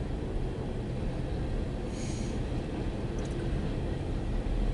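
Empty coal hopper cars of a freight train rolling past: a steady low rumble of wheels on the rails.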